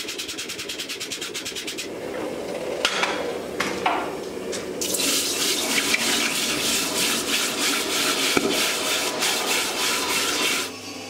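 Red-hot forged steel axe head being quenched: a loud sizzling, bubbling hiss from about five seconds in that stops suddenly near the end. It is preceded by quick, even scraping strokes as the hot steel is brushed on the anvil, and a few knocks.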